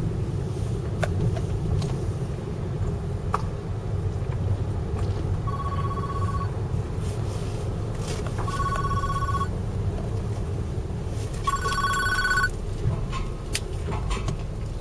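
A phone ringing three times: each ring is about a second of warbling electronic tone, about three seconds apart. A steady low rumble runs underneath.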